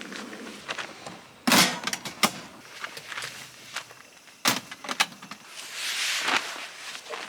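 Camping gear being handled and set down: a few sharp knocks and clicks, the loudest about a second and a half in, with a rustling swell near the end.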